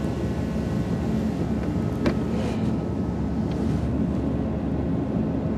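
Steady low running hum and air rush from the vehicle, with a couple of faint clicks as the melted blower motor resistor connector is handled.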